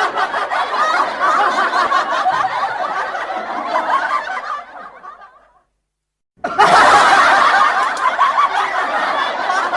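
Audience laughter sound effect: a crowd laughing together, fading out about halfway through. After a moment of dead silence it starts again abruptly and loud.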